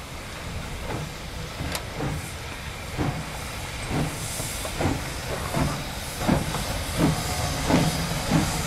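Steam locomotive 75 1118 getting under way: regular exhaust chuffs that come quicker and louder, over a steady hiss of escaping steam.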